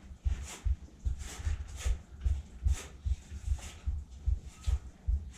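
Rhythmic footsteps with scuffs and scrapes, picked up by a body-worn GoPro as low thumps about three a second.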